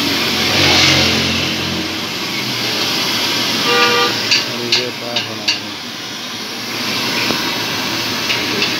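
Jalebi batter frying in a wide pan of hot oil: a steady, loud sizzling hiss. About four seconds in there is a brief horn-like tone, followed by a few sharp clicks.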